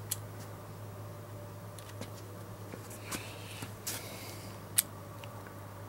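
A .22 pistol being handled between shots: a few light metallic clicks and a brief scraping slide noise, with one sharper click about five seconds in, over a low steady hum.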